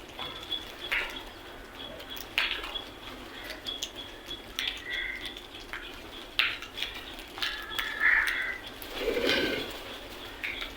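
Crows cawing, short harsh calls every second or two, with other small birds chirping briefly between them and a thin steady high tone in the background. A lower, fuller sound comes near the end.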